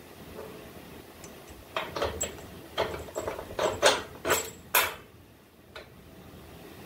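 A quick run of sharp metal clinks and clanks, about ten in three seconds, as a wrench and steel suspension link hardware knock together while the links are fitted to a truck frame.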